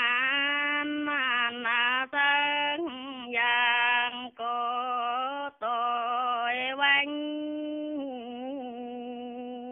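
A woman singing a Dao folk reply-song unaccompanied, in long held notes that waver in pitch, with short breaks for breath. From about seven seconds in she holds one note more softly, with a couple of small turns in it.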